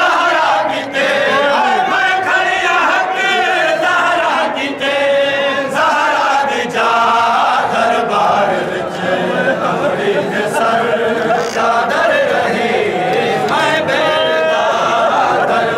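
Male voices chanting a noha, the Shia lament for Imam Hussain, together in a dense crowd, the sung lines rising and falling without a break.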